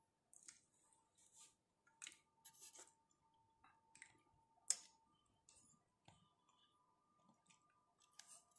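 Faint, scattered sticky clicks and crackles of durian flesh being pulled from the husk and eaten by hand, with one sharper click a little before the five-second mark, over a faint steady hum.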